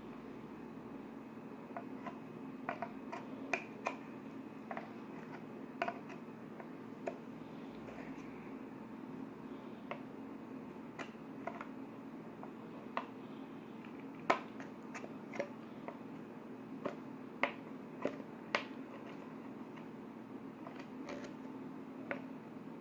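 Irregular sharp clicks and small pops, a couple of dozen spread unevenly, over a steady low hum.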